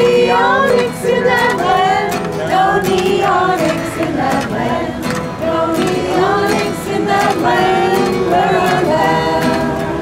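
A group of voices singing a song together, with long held notes.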